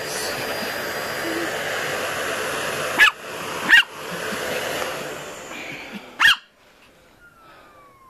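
Vacuum cleaner running steadily while a dog barks three sharp times, at about three, four and six seconds in. The vacuum cuts off about six and a half seconds in, and its motor whine falls away as it winds down.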